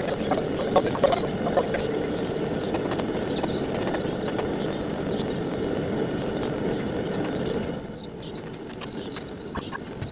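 Homemade forge furnace's burners running with a steady roar and some crackling. The sound drops noticeably about eight seconds in.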